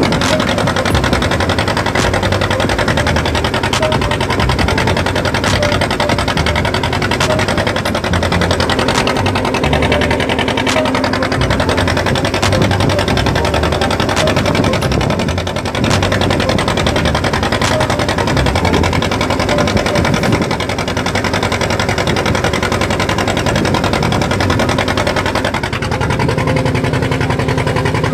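Fishing boat's engine running steadily, with a fast, even mechanical chatter.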